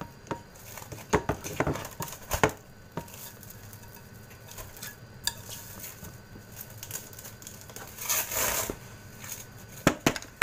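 Knocks and clatter of a cling-wrapped glass mixing bowl and other things being handled on a stainless steel counter: several sharp knocks in the first couple of seconds, a short rustling noise about eight seconds in, and two more knocks near the end.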